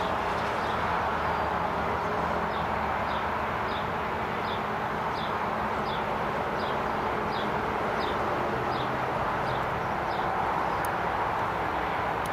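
Steady distant drone of a Robinson R44 helicopter approaching, with a bird repeating a short high falling chirp about every two-thirds of a second.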